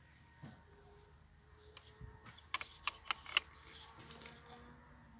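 Light clicks and taps from the plastic body of a Bosch angle grinder being turned over in the hands, with a quick run of four or five clicks about halfway through.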